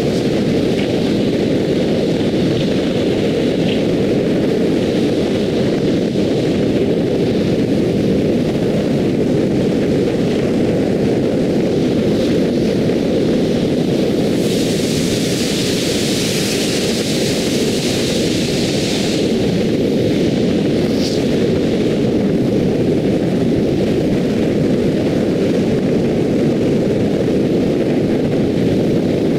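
Steady loud rush of wind and tyre road noise from a car driving at expressway speed. A brighter hiss swells for about five seconds near the middle.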